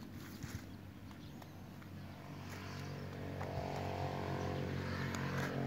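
A few footsteps on soft ground, then from about two seconds in a steady engine hum that grows louder toward the end.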